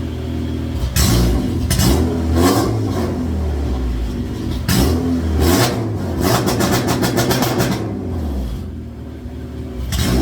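Honda K-series four-cylinder engine in a Civic hatchback running and being revved in short blips, with a longer rev in the second half that breaks into a rapid, even stutter.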